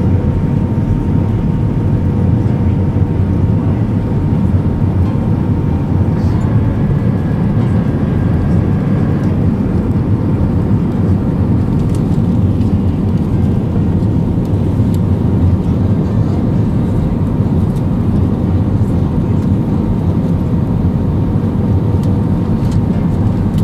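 Steady low drone of an Airbus A320's engines and airflow heard inside the passenger cabin, with faint steady hum tones over it and a brief higher tone about seven seconds in.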